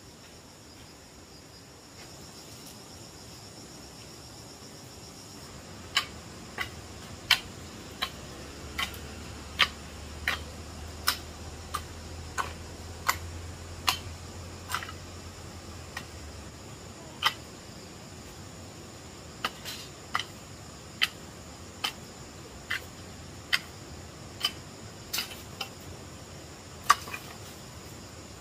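Insects, crickets or similar, chirring steadily and high-pitched. From about six seconds in, sharp clicks or taps come roughly once a second, first evenly and later less regularly.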